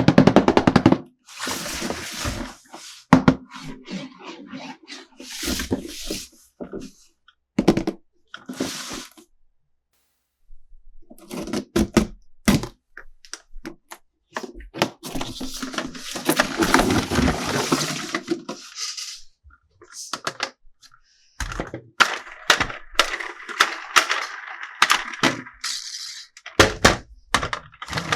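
Plastic toys and packaging being handled: irregular knocks, clicks and rustling, with a short pause about ten seconds in.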